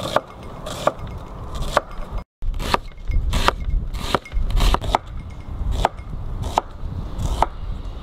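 Knife slicing onion into half rings on a cutting board: a sharp knock of the blade on the board roughly once a second, at an uneven pace.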